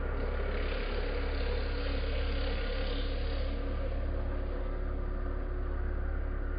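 A CNC foam-cutting machine running steadily as it cuts polystyrene foam: a constant low hum with a couple of steady tones. A hiss swells between about one and three and a half seconds in.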